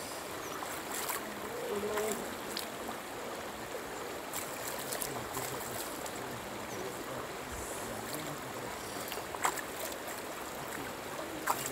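Steady rush of flowing river water, with a few short clicks scattered through it.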